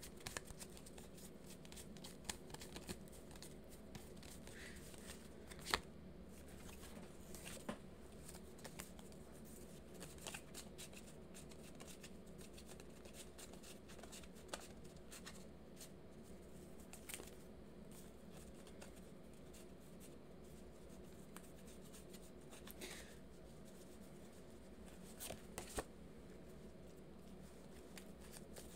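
A deck of tarot cards being shuffled and handled by hand: faint soft card rustles and scattered light taps, the sharpest a little under six seconds in, over a low steady hum.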